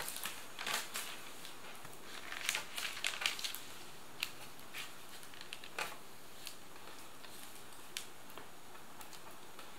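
Newspaper masking and tape being peeled off the edge of a plastic car grille and crumpled by hand: quiet crinkling and scratching, busiest about three seconds in, then a few single ticks.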